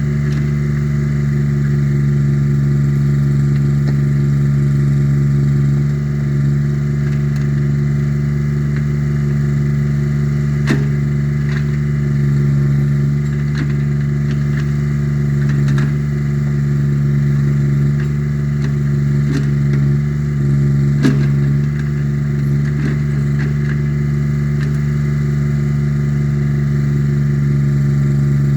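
Small engine of an Allmand 225 mini backhoe running steadily, with a few sharp knocks, clearest about eleven seconds in and again near twenty-one seconds.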